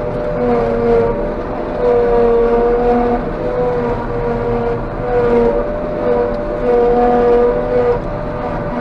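Claas Jaguar 830 self-propelled forage harvester running under load while chopping, heard from inside its cab: a steady machine hum with a high whine that wavers up and down in pitch every second or so.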